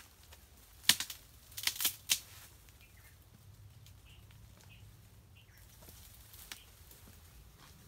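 Leafy branches and twigs rustling and snapping in a few sharp, loud bursts about a second in and again around two seconds in, then quiet rustling.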